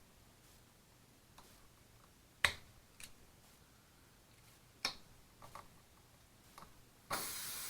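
Sharp metallic clicks of pliers gripping and working a nail in a car tire, a few scattered over several seconds. About seven seconds in, a sudden steady hiss starts: air escaping through the puncture as the nail comes free.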